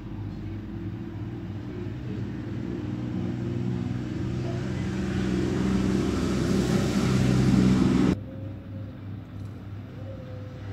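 Background music: a low droning swell that grows steadily louder and cuts off sharply about eight seconds in, followed by quieter low sustained notes.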